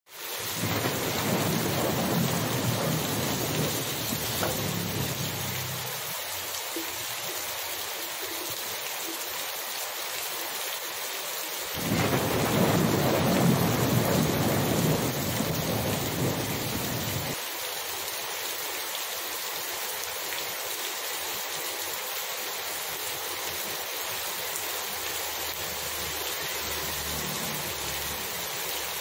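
Heavy rain falling steadily on a flooded street and hard surfaces, an even hiss. A low rumble swells under the rain for the first five seconds or so and again from about twelve to seventeen seconds in, the second spell stopping abruptly.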